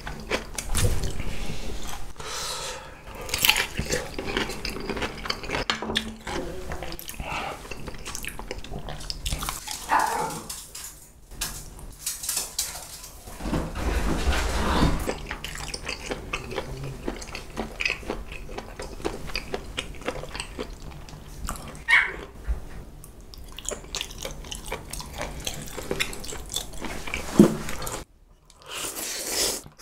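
Close-miked eating: crunching into a pickle, then chewing and slurping spicy instant fried noodles. A short voice-like sound comes about halfway through.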